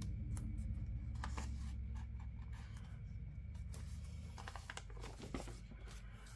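Soft rustles and light taps of paper sticker sheets being handled, as small heart stickers are peeled off and pressed onto a journal page. Under them runs a low rumble that slowly fades away.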